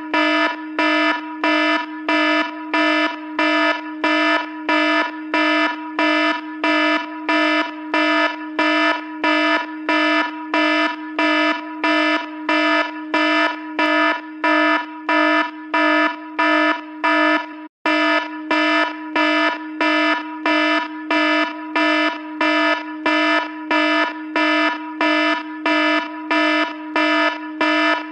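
iPhone alarm ringtone: a single buzzy tone repeating about one and a half times a second, with one very short break about two-thirds of the way through.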